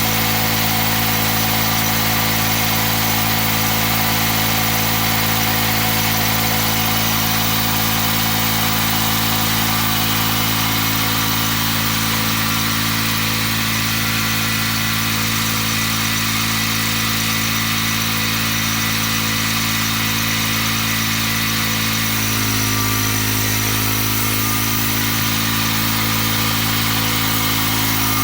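Gasoline engine of a homemade band sawmill running steadily. Its note shifts slightly near the end.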